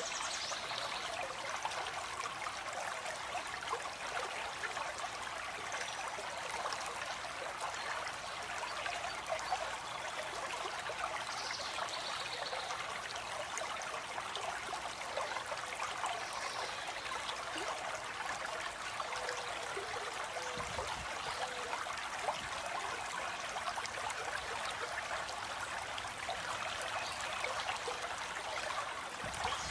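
Stream water flowing steadily, an even splashing hiss with no change. A few faint, brief bird calls sound over it.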